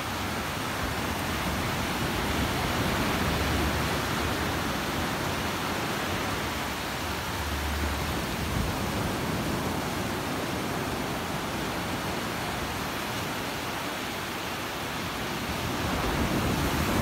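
Sea surf washing in over a sandy beach, a steady rushing noise that swells a little about three seconds in and again near the end.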